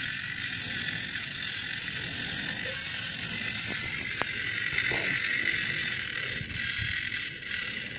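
Small DC motor and plastic gearbox of a solar-powered toy robot T-Rex whirring steadily as it walks, started the moment its solar panel is uncovered and the sunlight powers it.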